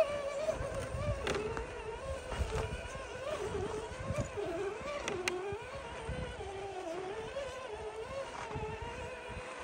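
Electric motor and geared drivetrain of a 1/10-scale RC crawler whining as it crawls through deep snow. The whine wavers, dipping in pitch a few times in the middle as the throttle and load change, over low rumbling and a couple of brief clicks.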